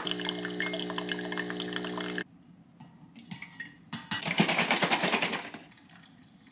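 A small electric kitchen appliance hums with a steady buzz for about two seconds and cuts off suddenly. About four seconds in, liquid is poured into a glass mug of coffee for a second or so.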